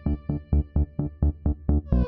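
Electronic background music with a fast, steady beat of about five strokes a second under held synthesizer tones.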